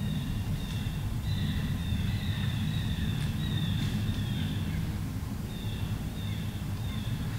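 Woodland ambience: a steady low rumble under runs of short, repeated high-pitched calls from wild animals at several pitches. The calls thin out briefly past the middle.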